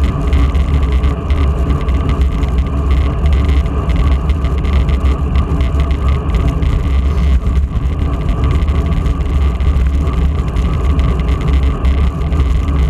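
Steady wind rumble on a bicycle-mounted camera's microphone while riding at road speed.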